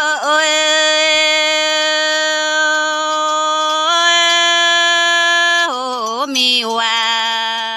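Red Dao (Iu Mien) folk singing: one unaccompanied voice holding long, drawn-out notes. There is a brief dip right at the start and a small step up about four seconds in, then the voice wavers and slides down to a lower held note near the end.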